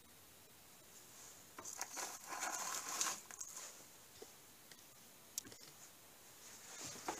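Clear plastic packaging crinkling as it is handled and set down, for about two seconds, followed by a single sharp click and a little more light rustling near the end.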